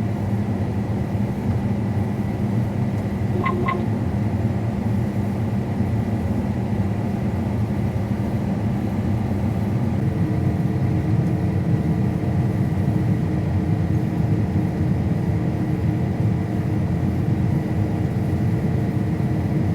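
Combine harvester running steadily while harvesting, a continuous engine drone with a faint high whine. A brief chirp sounds about three and a half seconds in, and about halfway through a further higher hum joins the drone.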